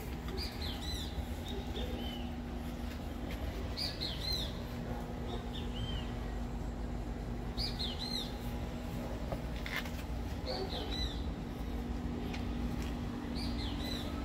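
A songbird singing a short phrase of quick, arching whistled notes, repeated about every three to four seconds, five times, over a steady low hum.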